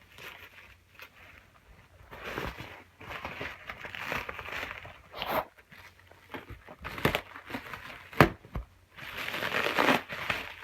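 Plastic packaging crinkling and tearing as it is pulled off a wheel in bursts, with a few sharp knocks; the loudest knock comes about eight seconds in.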